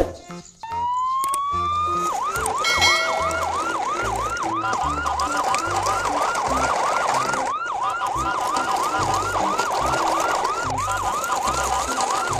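An electronic siren winds up over about a second, then wails in quick repeating falling sweeps, about two and a half a second, with a brief louder tone about three seconds in.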